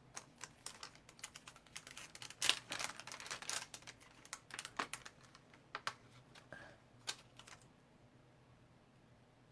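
A quick, irregular run of light clicks and taps from small craft pieces being handled on a tabletop. It stops about eight seconds in.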